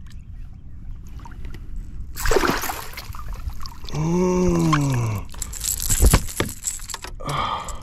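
Water splashing as a hooked largemouth bass thrashes at the side of a boat, then sharp knocks and rattles as the fish and lure are swung aboard. A drawn-out vocal sound that rises and falls comes in the middle.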